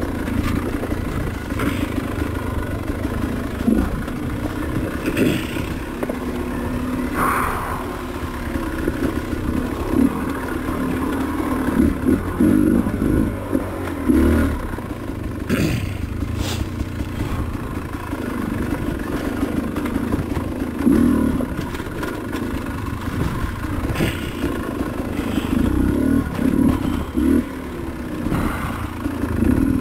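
Off-road motorcycle engine running continuously at varying throttle, with scattered clatter and sharp knocks throughout.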